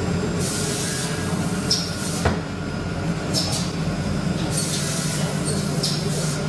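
Panel woodworking machine running with a steady low hum, broken by five short high-pitched hissing bursts and one sharp knock a little over two seconds in.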